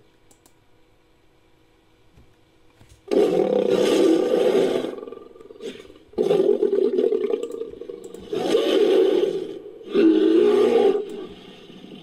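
Monster roar sound effects, pieced together from animal and monster roars: four loud roars, each a second or two long, the first about three seconds in.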